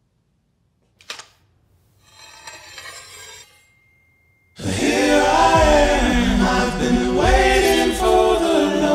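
Trailer sound design: a single sharp hit about a second in, then a faint metallic shimmer and a thin ringing tone as a katana is drawn from its sheath. About halfway through, loud dramatic music with chanting voices comes in.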